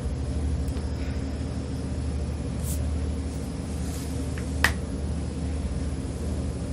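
Steady low machine hum in the background, with a single sharp click about four and a half seconds in.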